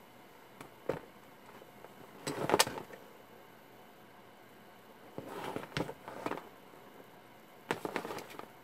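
Handling noise on a tabletop: four short bursts of clicks, knocks and rustling as test equipment and its wires are moved. The loudest burst comes about two and a half seconds in.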